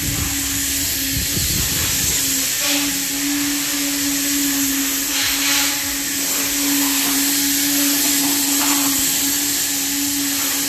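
An electric motor running at a steady speed with a constant hum, under a loud hiss of rushing air or spray, as from a workshop vacuum or cleaning machine.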